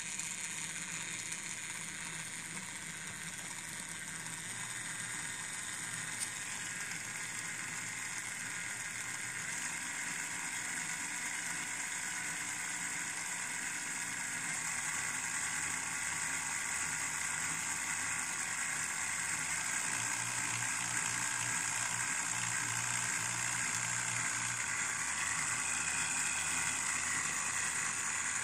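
Small DC motor spinning an aluminium drum through a belt drive, running steadily with a hissing whir that slowly grows a little louder.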